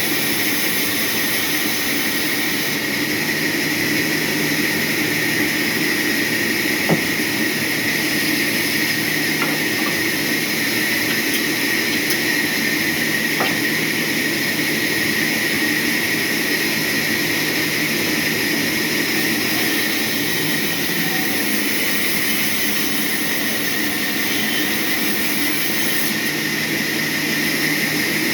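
Sawmill machinery running steadily, a constant mechanical noise with a high whine, with one sharp click about seven seconds in.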